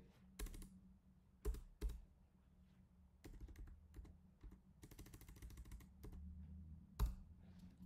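Computer keyboard keys clicking as code is deleted with the backspace key and retyped. There are several separate keypresses, then a quick run of rapid keystrokes about five seconds in, faint, over a steady low hum.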